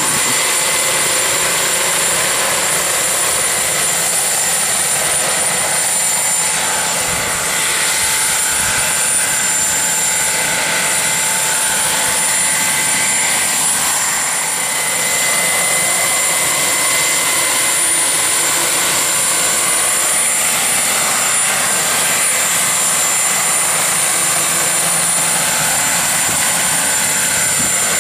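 Turbine engine of a radio-controlled scale Mil Mi-24D Hind helicopter running, a steady high whine over a loud rushing noise, with the rotors turning as the model hovers and manoeuvres low.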